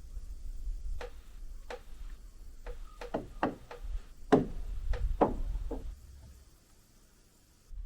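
A series of irregularly spaced sharp knocks and taps, about a dozen, over a low rumble, dying away about six seconds in.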